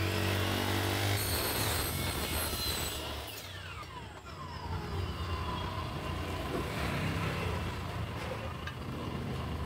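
Electric miter saw running and cutting through an aluminium framing profile with a high whine. A little after three seconds the blade winds down in falling pitch, and a steady low hum carries on behind.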